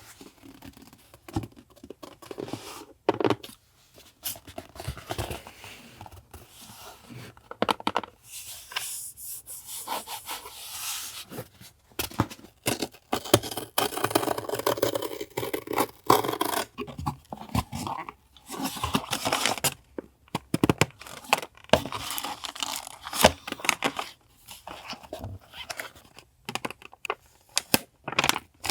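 Paper and packaging being handled: irregular rustling, crinkling and tearing, with scattered sharp taps and clicks.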